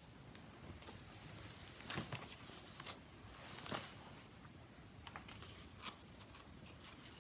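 Faint rustling and soft clicks of a hardcover picture book being handled and its pages turned, loudest about two seconds in and again just before four seconds.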